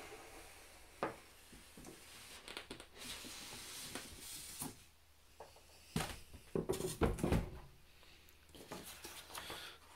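A large cardboard box being handled and turned over on a table: rustling and scraping of cardboard with a few light knocks. There is a busier run of bumps and rubs about six to seven and a half seconds in.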